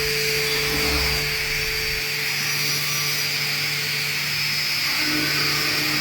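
Five-sided CNC woodworking machining center running, a steady mechanical whine with hiss.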